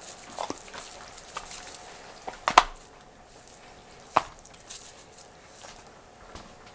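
Seasoning being shaken onto pork chops: light taps and clicks from a spice container, with two sharp knocks about two and a half and four seconds in.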